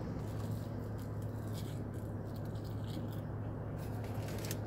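Soft close-up chewing of French fries with the mouth closed, a few faint crunchy mouth noises, over a steady low hum inside a car.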